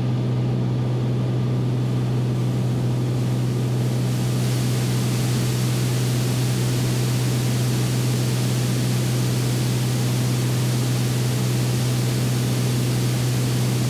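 Steady drone of a Beechcraft Bonanza's piston engine and propeller heard inside the cockpit, with a rushing hiss of airflow. The engine is at descent power, around 2,490 rpm.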